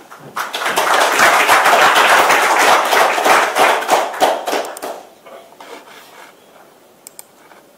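Audience applauding, loud for about five seconds and then dying away, followed by a few faint clicks near the end.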